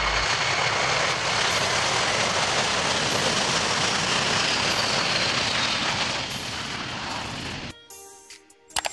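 McDonnell Douglas KC-10 Extender's three turbofan engines at takeoff power during the takeoff roll: steady jet noise that fades and cuts off abruptly about eight seconds in. A few faint tones and a short click follow near the end.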